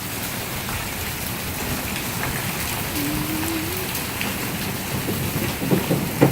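Heavy rain pouring down steadily, with a few sharp knocks near the end.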